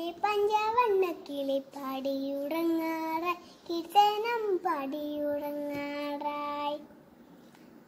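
A young girl singing a song unaccompanied, in short phrases of held and gliding notes. She holds the last note for about two seconds and stops about seven seconds in.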